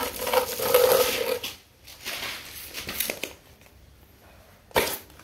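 A short whine from the nursing puppies or their mother at the start, then rustling and handling as a green plastic lid is set on the concrete floor, with one sharp plastic knock near the end.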